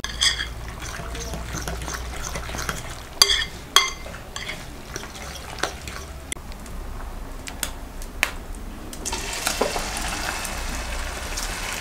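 A spoon stirring a wet mixture in a glass mixing bowl, with a few sharp ringing clinks of the spoon against the glass. About nine seconds in, a steady sizzling hiss starts as the mixture is tipped into the hot frying pan.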